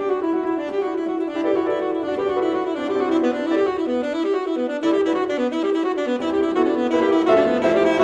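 Saxophone and piano playing a fast passage: a quick run of short notes weaving up and down.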